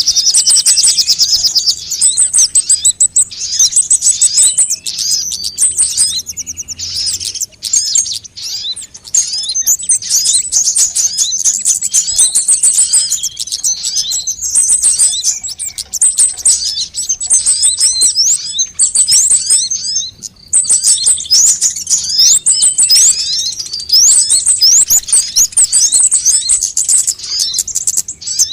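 Recorded sunbird calls used as a bird lure: rapid high chirps and trills, densely packed and repeating almost without pause, with short breaks about seven and twenty seconds in.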